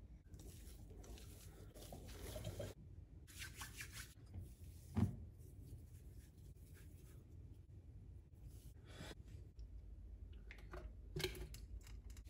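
Quiet kitchen handling sounds: hands mixing and squeezing mashed potato in a stainless steel bowl, with soft rustling and scattered light clicks. A single sharp knock about five seconds in is the loudest sound.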